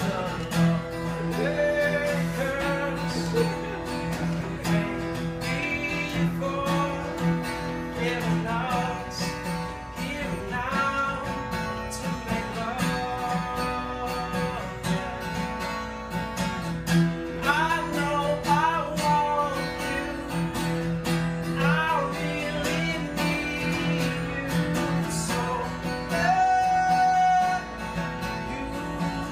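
Male voice singing over a strummed acoustic guitar, both unamplified, with no microphones or pickup.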